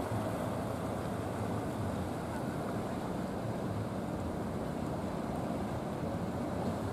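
Steady engine drone of a traditional wooden fishing boat underway, towing a second boat lashed alongside, mixed with the wash of waves.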